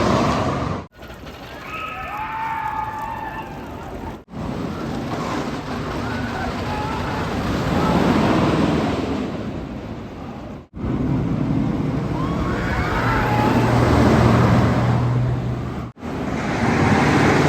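Roller coaster trains rumbling past in a run of short clips, each one swelling and fading, with high screams from riders over the rumble.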